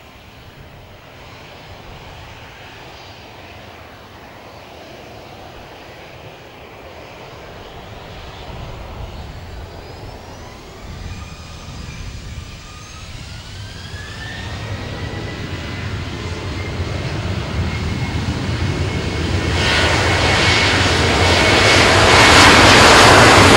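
Boeing 737-800's CFM56-7B turbofan engines spooling up to takeoff thrust. A rising whine comes in about halfway through, and the engine noise grows steadily louder, jumping sharply near the end as the jet accelerates down the runway on its takeoff roll.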